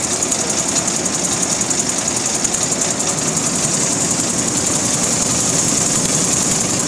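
Roller-type nut chopping machine running, with a steady, fast, even rattle.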